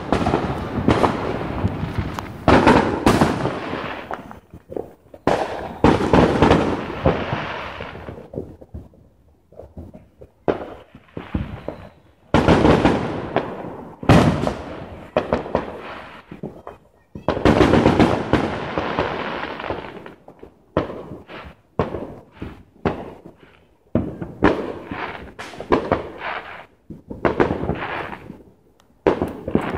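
Many fireworks going off: sharp bangs one after another, often overlapping into dense runs with an echoing rumble, broken by short lulls.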